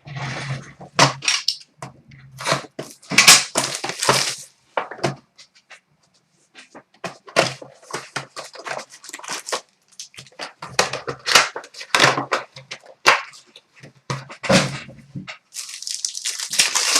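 Hockey card pack wrappers being torn open and crinkled, with cards handled, as a run of irregular crackles and rustles with short pauses.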